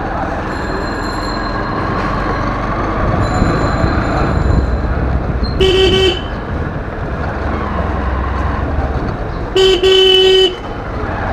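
Motorcycle horn beeping twice, a short beep a little past halfway and a longer one of about a second near the end, over the steady low rumble of the motorcycle riding along.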